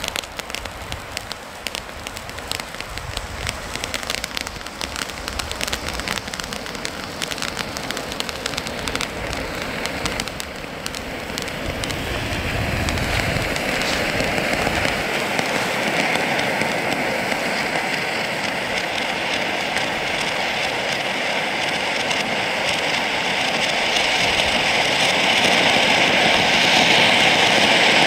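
Läubli Elfenzauber conic fountain firework (a gold fountain with blinking strobe stars) burning with a steady hiss of spraying sparks and fine crackling. It grows louder and higher about twelve seconds in, and again near the end.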